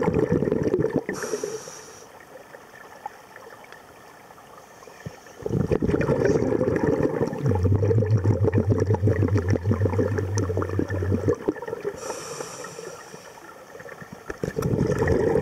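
Scuba breathing heard underwater: long bursts of exhaled bubbles rumbling out of a regulator, each followed by a brief hiss as the diver inhales through it. One exhale ends about a second in, a long one runs through the middle, and another begins near the end. A low steady hum is heard for a few seconds during the middle exhale.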